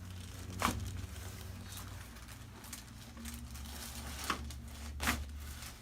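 Rustling and crinkling of a patient shifting on a chiropractic treatment table, with three sharp clicks, one within the first second and two near the end, over a steady low hum.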